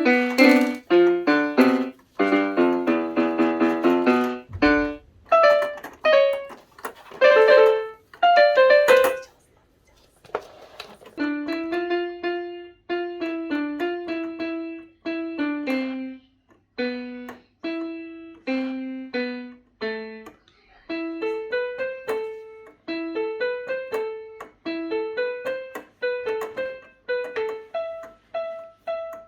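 Electronic keyboard playing a simple melody of short single notes that die away quickly, with a brief break about ten seconds in.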